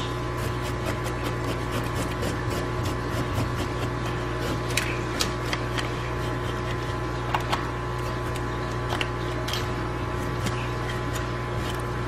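Kitchen knife scraping scales off a Korean rockfish's head on a cutting board: scattered light ticks and scratches over a steady low hum.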